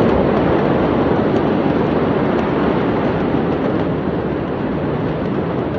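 Loud, steady rushing noise of wind buffeting a phone's microphone outdoors.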